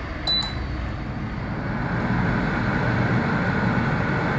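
Solara air fryer: one short beep from its touch panel just after the start, then its fan starts up, a steady rush of air that grows louder over about two seconds and runs on evenly as it begins a bake at 180 °C.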